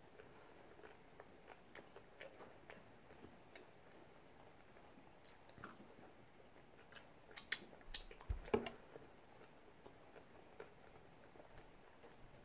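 A person chewing food with faint wet mouth clicks, a cluster of louder clicks a little past halfway.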